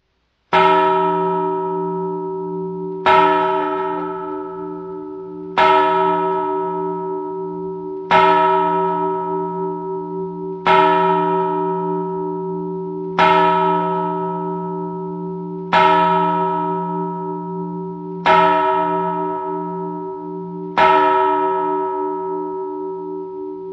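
A single church bell tolling slowly, nine strokes about two and a half seconds apart, all at the same pitch. Each stroke rings on and fades with a slow wobble in its hum until the next strike.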